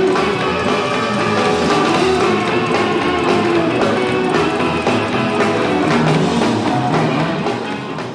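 Live punk band playing, with electric guitar and drum kit, fading out near the end.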